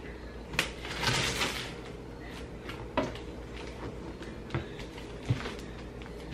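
A box cutter slicing open a cardboard shipping box, with a scraping rip about a second in and several sharp knocks and taps as the box is handled.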